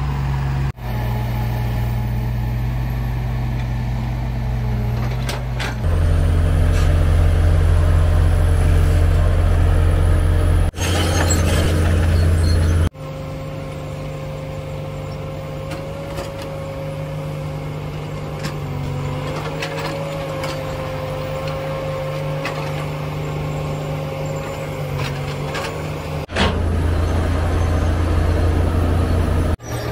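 Heavy diesel earthmoving machinery, a large excavator and a crawler bulldozer, running under load with a steady low engine drone. The sound changes level abruptly several times, and through the middle part a steady whine sits above the engine.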